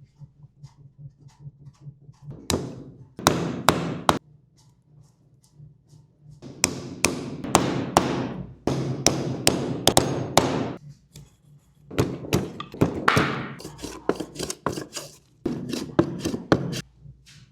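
Sharp wooden knocks and taps striking a cricket bat in three runs of rapid blows, with pauses between, over a faint steady low hum.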